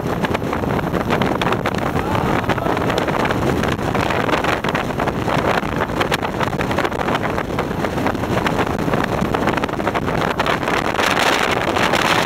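Rigid inflatable boat (RIB) running fast on the river: a steady rush of engine and water, with wind buffeting the microphone throughout. A little louder near the end.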